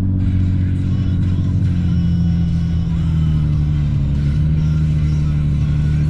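A car's engine and road noise droning steadily while driving at a constant speed.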